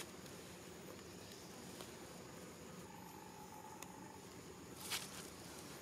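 Faint outdoor ambience of insects humming steadily, with a few tiny high chirps, and a brief rushing noise about five seconds in.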